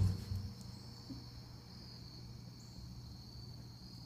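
Lull with a steady high-pitched insect trill and a low steady hum, after a brief thump fading right at the start.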